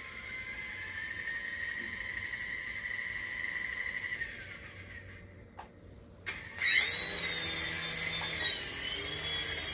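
Toy RC helicopter's small electric rotor motors whining. A steady whine fades out after about four seconds; after a short pause a louder whine starts with a sharp rise in pitch as the helicopter lifts off, then wavers up and down as the throttle changes.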